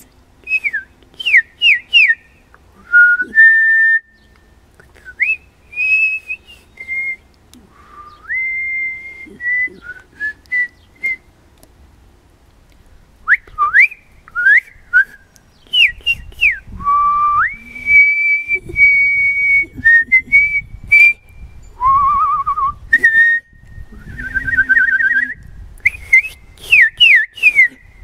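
A woman whistling bird-like calls by mouth: runs of quick down-slurred notes and long held notes that step up and down in pitch. Warbling trills come late on, and it ends with another run of quick down-slurred notes.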